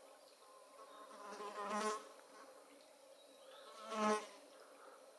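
A flying insect buzzing past twice, about a second in and again about four seconds in, each pass swelling and fading within about a second.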